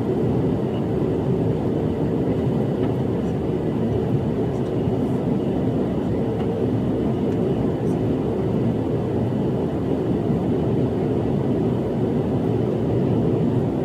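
Airplane's steady engine and air noise during the climb after takeoff, a low, even rumble that does not change.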